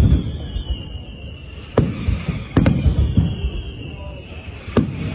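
Aerial firework shells bursting in a display: four sharp booms with rumbling tails, two of them close together midway and one near the end, over a steady high-pitched hiss.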